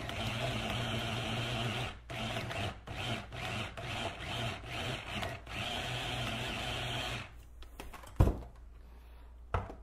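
Red handheld electric stick blender running steadily as it chops raw beef in a plastic beaker, its motor cutting out and back in briefly several times in the middle, then switched off about seven seconds in. Two short knocks follow near the end.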